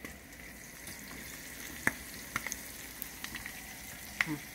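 Halved Brussels sprouts sizzling in hot oil in a skillet over a high gas flame: a steady frying hiss with a few sharp pops, the loudest about two seconds in and near the end.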